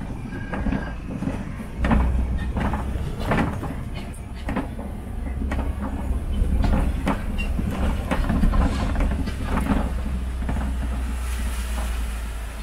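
Open safari truck driving over a rough dirt track: a steady low rumble of engine and road, with frequent irregular rattles and clunks as the vehicle jolts over bumps.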